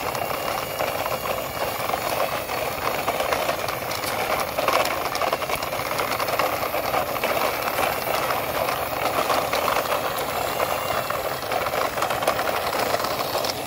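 Plastic toy army lorry rolling over dry, gritty sandy dirt: a steady rattling grind of its plastic wheels and body.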